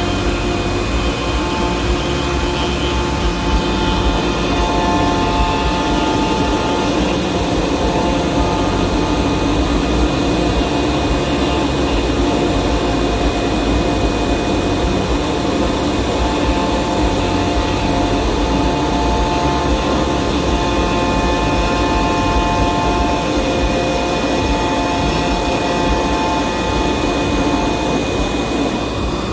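Fox Alien 4040 CNC router running: its 300-watt spindle whines steadily, while shorter pitched tones from the axis motors come and go every few seconds as the moves change.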